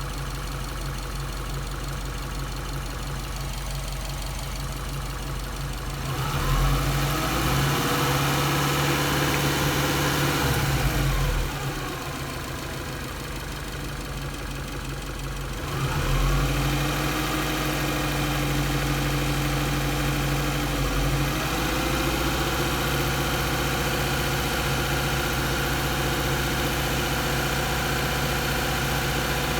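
Subaru EJ207 2.0-litre turbocharged flat-four idling while warming up, blipped twice to a light throttle and held for several seconds each time, with the engine note rising and then settling back to idle. The owner suspects a failed head gasket or a cracked head or block.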